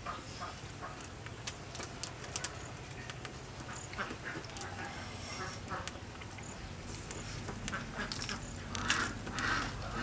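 A person eating boiled beef offal close to the microphone: chewing, with many small wet mouth clicks and lip smacks, and a louder cluster of mouth sounds near the end.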